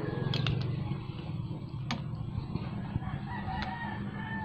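A rooster crowing in long, drawn-out calls, the clearest one starting about three and a half seconds in. A few sharp clicks and a steady low rumble are heard under it.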